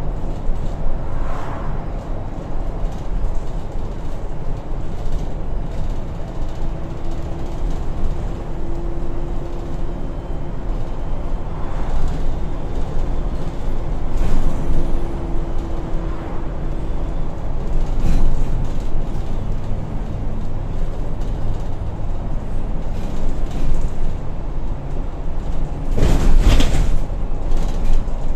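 A Volvo B8RLE single-deck bus on the move, heard from inside the saloon: a steady engine drone with road rumble. A faint whining tone comes in twice in the middle, and a brief loud rush of noise comes near the end.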